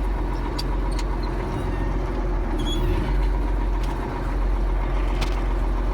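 Ford 9700 tractor's six-cylinder diesel engine running steadily, with a few faint clicks over it.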